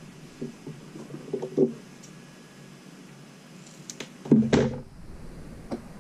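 Light clicks and taps of scissors and small parts being handled on a hard desktop, then a sharp snip about four seconds in and a louder half-second clatter, as steel scissors trim a silicone thermal pad and are put down on the desk.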